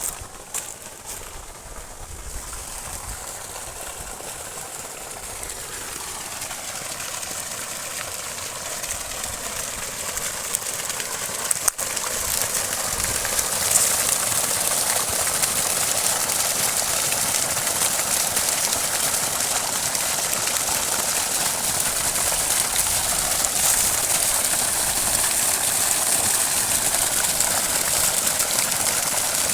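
Freshly repaired farm pump motor running with a steady rushing noise that grows louder over the first dozen seconds, then holds steady.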